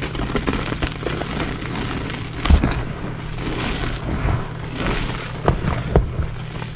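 Blocks of plain gym chalk crushed and squeezed by hand into a bowl of loose chalk powder: a continuous dry crumbling and crunching, with louder crunches about two and a half seconds in and twice near the end. A steady low hum runs underneath.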